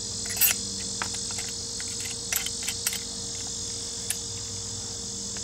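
Small-engine electric starter being handled: a few light metallic clicks and taps as the end cap and a through-bolt are fitted and lined up, the sharpest about half a second in and a cluster a little past two seconds. Under them runs a steady high hiss and a low hum.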